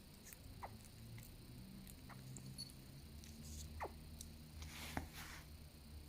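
Faint tiny hiccups from a small pet, each a short falling chirp like a laser-beam 'pew', repeating every second or so, about four times.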